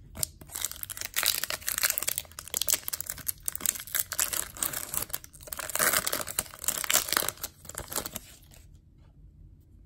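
Foil wrapper of a 2019 Topps Chrome baseball card pack crinkling and tearing as it is ripped open by hand, in uneven crackling bursts, stopping about a second and a half before the end.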